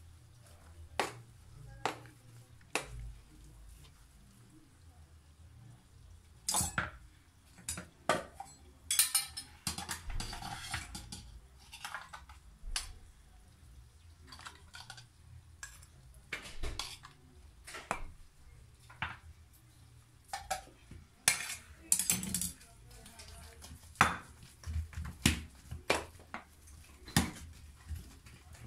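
Metal spoon knocking and scraping against a stainless steel pot while mashing potatoes, in irregular clinks of varying loudness, with a longer stretch of scraping about ten seconds in.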